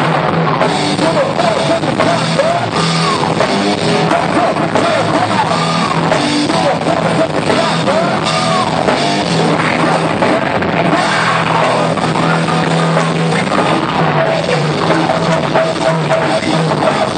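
Rock band playing loud and steady, with drum kit and a lead line that repeatedly bends up and down in pitch.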